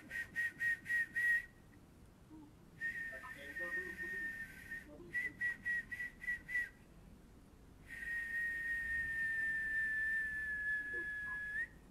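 High whistling, used as a healing sound in an energy-healing treatment: runs of short whistled pulses at about four a second alternate with held notes. It ends on a long held note that sags slightly and flicks upward as it stops.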